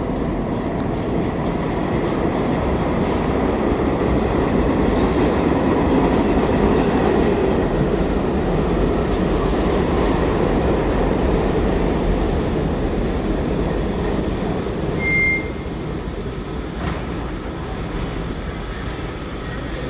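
New York City subway train running along the track: a steady rumble that swells through the middle and eases near the end, with one brief high wheel squeal about fifteen seconds in.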